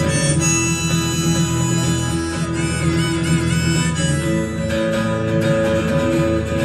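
Instrumental break in a live acoustic folk song: strummed acoustic guitar under a held, wavering lead melody line, with no singing.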